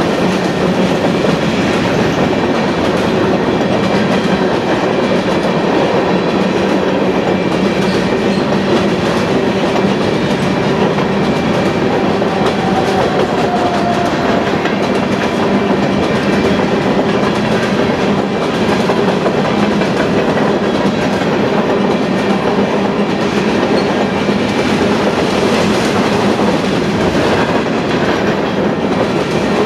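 Covered hopper cars of a freight train rolling past close by, their steel wheels giving a steady, loud rumble and clatter on the rails.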